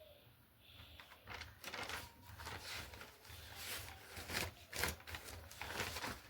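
Irregular rustles and knocks of things being handled, starting about a second in and loudest in the middle.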